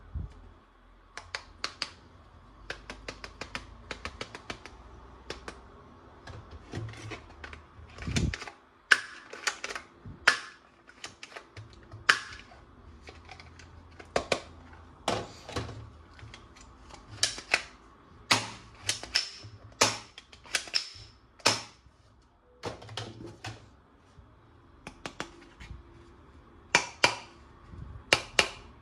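Plastic toy guns being handled: irregular sharp clicks and snaps, some in quick runs, with a few louder snaps.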